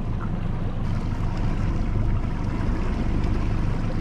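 Yamaha F90 four-stroke outboard running steadily at slow trolling speed, with water washing along the hull.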